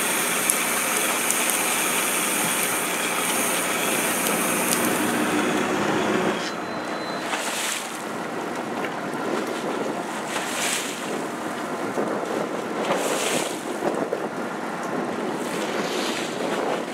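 Sportfishing boat's engine running, with wind on the microphone and water churning at the stern. After about six seconds the sound changes to surges of wind and water noise every two to three seconds.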